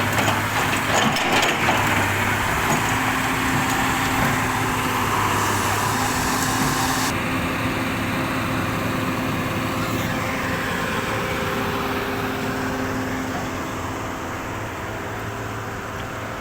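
A diesel engine of heavy machinery running steadily. The higher hiss over it drops away abruptly about seven seconds in.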